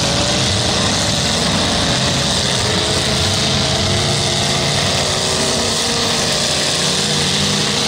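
Engines of several demolition derby cars running as the cars manoeuvre on dirt, over a steady wash of crowd noise.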